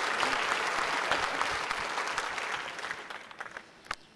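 Audience applauding, the clapping thinning out and dying away in the last second or so, with a few single claps near the end.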